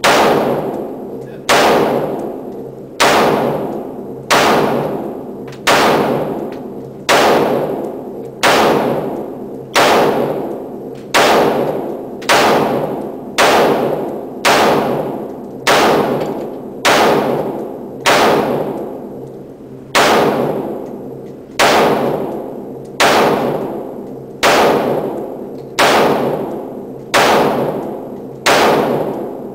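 Sharp bangs repeating at a very even pace, about one every one and a half seconds, each trailing off in a ringing echo.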